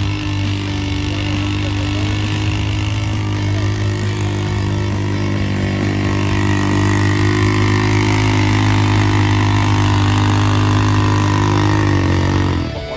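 Quad bike (ATV) engine running at a steady pitch, getting somewhat louder about halfway through, then cutting off abruptly just before the end.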